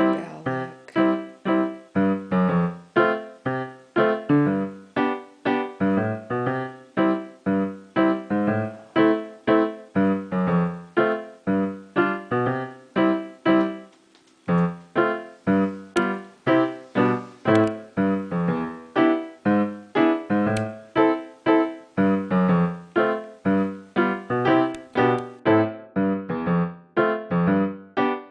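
Piano music: a gentle melody of evenly paced notes, about two a second, with a brief pause about fourteen seconds in.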